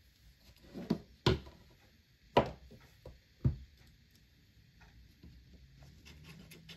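iPhone 15 Pro Max being handled and set down into its cardboard box: a few sharp knocks, the loudest about one and a half and two and a half seconds in. Softer clicks and rustling of the paper packaging follow near the end.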